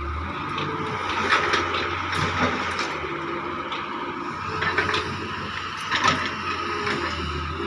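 Doosan DX140 wheeled excavator's diesel engine running under hydraulic load as it swings and works its bucket, with a steady whine and several sharp knocks from the bucket and linkage.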